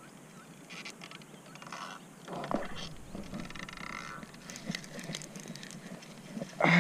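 Spinning reel being cranked in short spells, giving irregular clicking and ticking, with a thump about two and a half seconds in and a louder burst of noise near the end.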